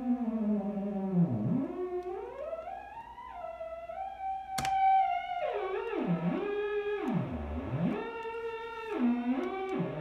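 Homemade joystick synthesizer: a single-transistor oscillator whose pitch is swept by hand through the joystick's potentiometers, giving one tone with many overtones that swoops down low about a second in, glides up to a held high note, then dips down and back up several times. A sharp click about halfway through.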